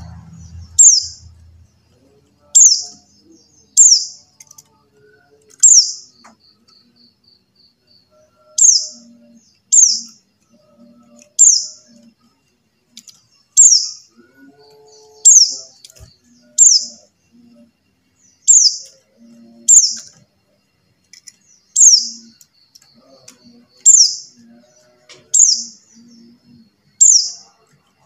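Pleci buxtoni (white-eye) calling: a sharp, high call that falls quickly in pitch, repeated about every one to two seconds at an uneven pace.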